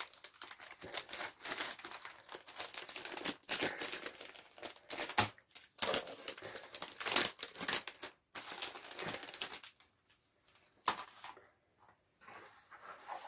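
Clear plastic packaging of a cross-stitch kit crinkling and rustling as it is handled and opened and its contents are pulled out. The crackling is dense and irregular, then thins to a few scattered rustles in the last few seconds.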